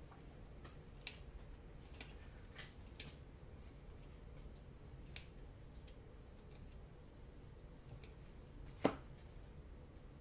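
Faint, scattered clicks of glossy trading cards slid and flipped one by one through the hands, with one sharper, louder click about nine seconds in.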